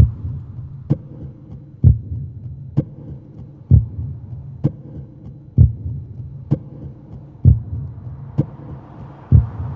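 Slow, even deep thumps about once a second, like a heartbeat, over a low steady droning hum. This is a sound-design pulse in the soundtrack rather than a sound from the scene.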